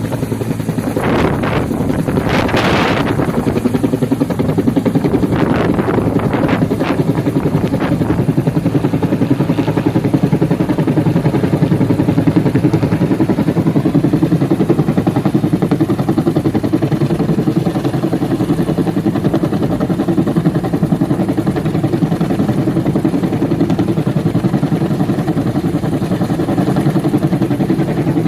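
Bell 212 helicopter running steadily, its rotor beating in a fast, even pulse over the turbine noise. Gusts of wind noise come in the first few seconds.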